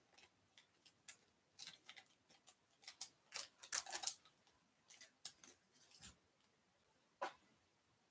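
Foil wrapper of a Topps baseball card pack being torn and peeled open by hand: a run of faint, irregular crinkles and crackles, then one sharper click a little after seven seconds in as the stack of cards comes free.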